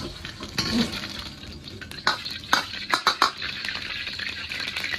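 Steel ladle and perforated skimmer scraping and clinking against a wok while fried chicken cubes are scooped out of hot oil, with a handful of sharp clinks in the middle. Under it the oil sizzles steadily, growing stronger in the second half.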